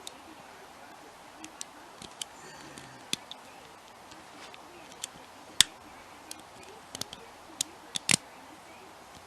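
Lock picks and tension wrench working the pins of a hand-held pin-tumbler challenge lock: sparse, irregular small metal clicks and ticks, with sharper clicks about five and a half and eight seconds in.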